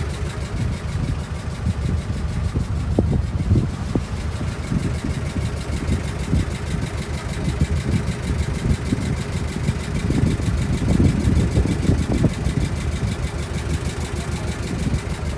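A small river tour boat's engine running steadily, a continuous low rumble heard from on board.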